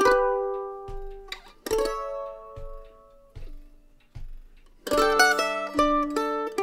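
Kentucky KM150 mandolin played solo: a picked chord at the start and another a little under two seconds in, each left to ring and die away, a few soft, sparse notes, then a run of quicker picked notes from about five seconds in.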